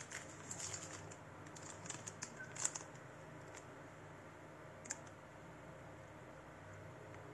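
Hands handling the contents of an open motherboard box: scattered small clicks and light rustles of cardboard, paper and plastic. The loudest click comes about two and a half seconds in, and a single one near five seconds, over faint room tone.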